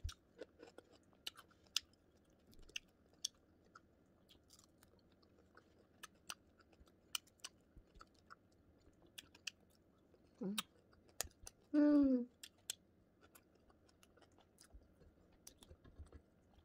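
Close-up chewing of crispy fried matambaka (bigeye scad), with many sharp mouth clicks and small crunches scattered throughout. About two-thirds of the way in, two brief hums from the eater come one after the other, the second louder.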